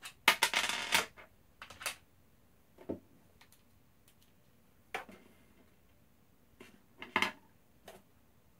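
Handling noises from work on an Xbox One's metal shield plate as it is being screwed back down: a short loud rattle about half a second in, then a few scattered clicks and taps.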